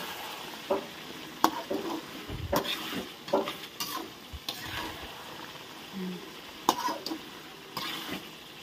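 Slotted metal spatula stirring and scraping meat around a metal wok, with a steady sizzle of frying underneath. Several sharp scrapes and clinks of the spatula against the pan come at irregular moments.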